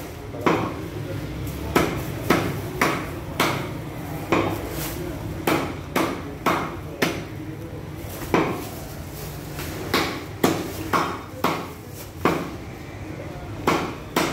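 Meat cleaver chopping goat meat on a wooden chopping block: sharp, uneven chops about one and a half a second, with a short pause about halfway through.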